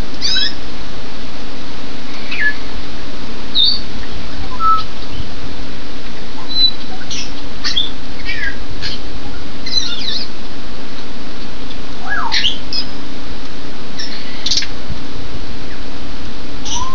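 Heavy rain making a steady, loud hiss on the plastic-covered hoop-house aviary. Through it, African grey parrots give short whistles and squawks every second or so, ending with a rising whistle near the end.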